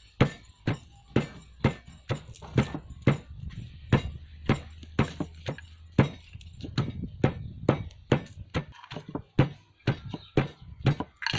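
Heavy pestle pounding spice paste in a stone mortar: steady, evenly spaced thuds, about two to three a second.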